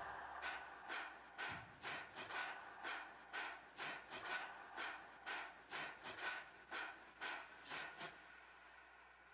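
A person's quick, sharp gasping breaths, about two to three a second, with the music dropped out; they stop about 8 seconds in.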